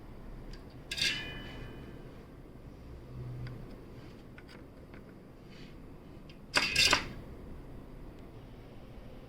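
Small metal parts and tools being handled. There is a sharp clink with a short ring about a second in, a few light ticks, then a louder rattling clatter of several clicks about two-thirds of the way through.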